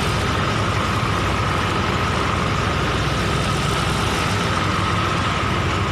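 Diesel engine idling steadily while it warms up: a constant low rumble with a steady whine on top.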